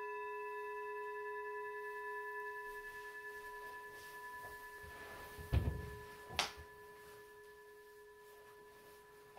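A single struck bell tone, several clear pitches ringing on and slowly fading. About halfway through come two soft thumps with rustling as someone sits down in an upholstered armchair.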